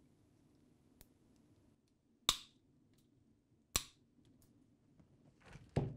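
Two sharp snips about a second and a half apart: cutters trimming the excess tails off the two plastic cable ties that hold a retention clip to a fiber-optic cable. A duller knock with some handling noise follows near the end.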